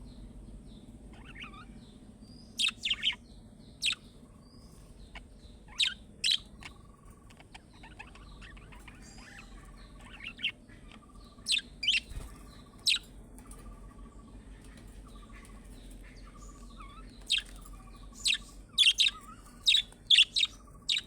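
Budgerigars chirping: loud, sharp chirps in clusters, with softer chattering notes between them.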